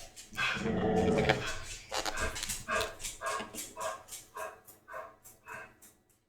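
A dog barking and whining: a louder bark early on, then a run of short, evenly spaced yelps, about two or three a second, that fade toward the end.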